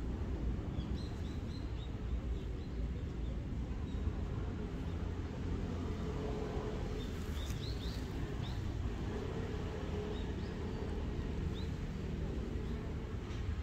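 Outdoor background: a steady low rumble with small birds chirping faintly, a few short rising chirps about a second in and a cluster about six to eight seconds in.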